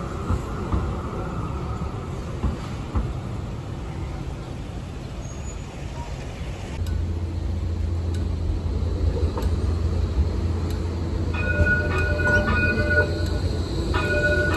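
E-class tram running past and rounding the curve, a low steady rumble growing from about halfway, with its wheels squealing on and off in clear high tones in the last few seconds.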